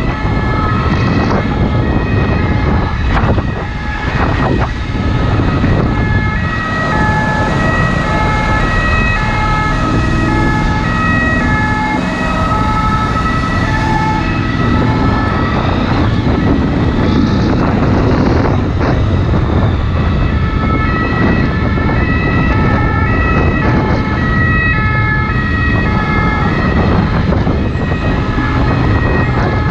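French SAMU ambulance two-tone siren, switching back and forth between two notes over and over. Underneath it runs the steady rush of wind and the engine of a Honda VFR800 motorcycle riding through motorway traffic.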